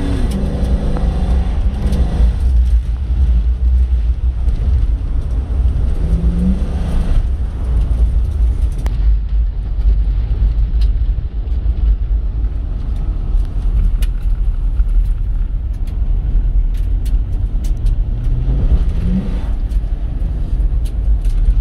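Nissan Pathfinder V8 driving on a dirt road, heard from inside the cabin: a steady low rumble of engine and tyres, with scattered small ticks.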